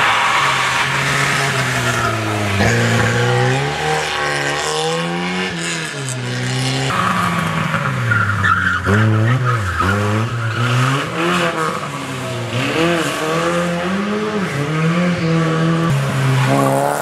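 Club rally cars, old Lada saloons and a Škoda Felicia, driven hard through a corner one after another, engines revving up and dropping back through the gears, with tyres squealing around the middle.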